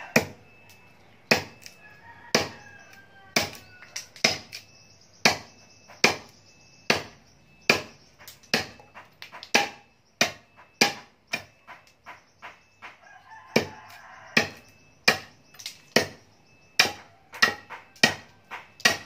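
A golok with a 35 cm blade chopping again and again into the end of a hard wooden post: about twenty-five sharp chops, about one a second at first and coming faster in the second half.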